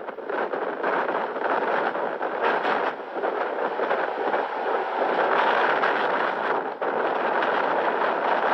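Strong storm wind rushing and buffeting the microphone in a loud, steady noise, with brief dips about three and seven seconds in.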